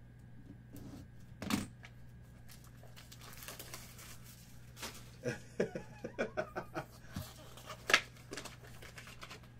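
Cardboard and plastic wrapping of a small sealed trading-card box being opened and handled: crinkling and short clicks, a sharp snap about one and a half seconds in, a quick run of crackles in the middle, and the loudest snap near the end.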